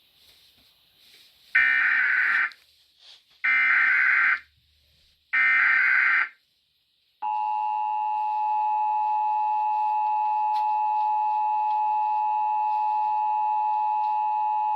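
Emergency Alert System SAME header: three one-second bursts of digital data tones, then, about seven seconds in, the steady two-tone attention signal at 853 and 960 Hz. Together they mark the start of an EAS alert, here a Required Monthly Test.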